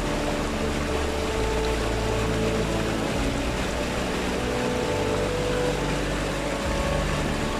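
Shallow stream water rushing over rocks, steady throughout, with background music of held low notes that change every second or two.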